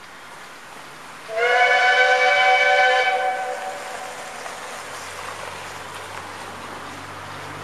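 Whistle of NGG16 Beyer-Garratt steam locomotive No. 138 sounded once for about two seconds, several notes at once, sliding up slightly as it opens and then fading. A low steady rumble of the approaching locomotive follows.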